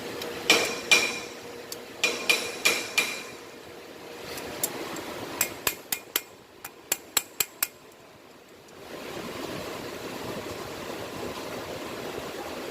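Hammer blows ringing on metal engine parts, working loose a part that is stuck in an engine run without oil: two loud strikes, a group of four or five, then a quicker run of about ten lighter taps. About nine seconds in, a steady hiss starts.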